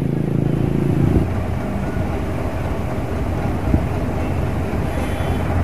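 Diesel truck engine running with a steady low note that drops away about a second in, leaving a lower rumble. There is one sharp knock a little past halfway.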